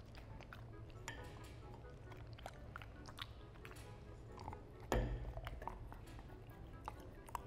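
German Shepherd chewing and crunching a cold treat, with sharp crunches scattered throughout, over soft background music; one louder thump about five seconds in.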